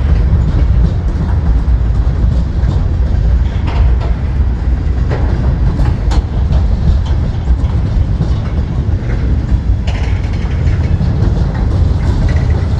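CSX freight train's container-carrying well cars rolling past: a loud, steady rumble of steel wheels on rail, with scattered clicks and clanks from the cars.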